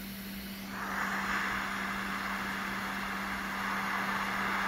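Hot air rework station blowing on a small surface-mount resistor on a graphics card board to heat its solder for replacement: a steady hiss of air comes in about a second in and holds, over a constant low hum.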